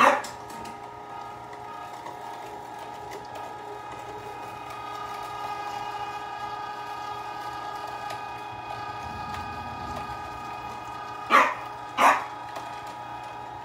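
A 1 hp Carnivore electric meat grinder running steadily under load as raw meat and frozen blocks are fed through it, a constant motor whine with several steady tones. Two short, loud sharp sounds come close together near the end.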